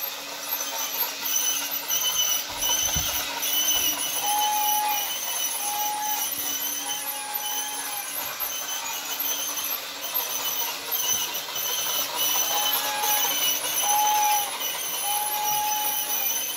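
Toy train running around a Christmas-tree track, its whistle sounding in two groups of three blasts, the last blast of each group the longest, over a steady pulsing running noise.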